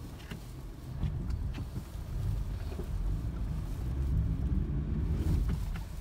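Car engine heard from inside the cabin, pulling the car up a slippery, snow-covered driveway. Its note rises and falls a couple of times as the throttle is worked.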